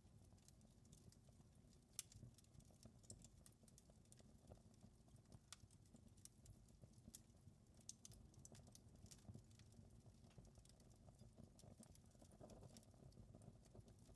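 Wood fire crackling faintly, with irregular small pops and snaps over a low rumble of the flames; the sharpest pop comes about two seconds in.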